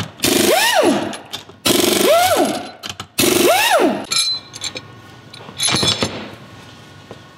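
Pneumatic wrench run in three short bursts of about a second each, its pitch rising and falling with every pull of the trigger, as it loosens the bearing cap bolts on a differential third member. A short clatter about six seconds in.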